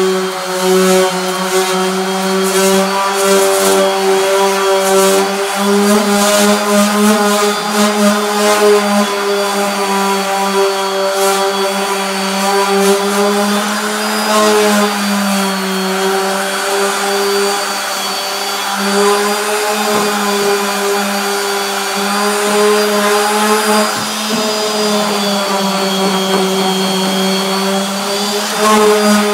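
Dual-action sander running against an aluminum snowmobile tunnel, sanding the metal: a steady motor hum whose pitch wavers slightly as it is worked over the panel, with a scratchy hiss of abrasive on aluminum.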